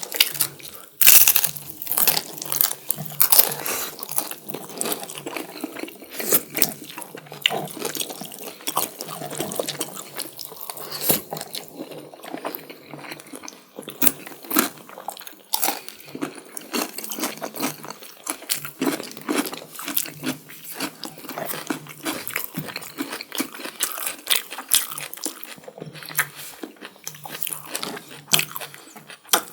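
Close-miked eating: mouth sounds of chewing and biting chicken curry with biryani rice, with many irregular sharp wet clicks and crunches.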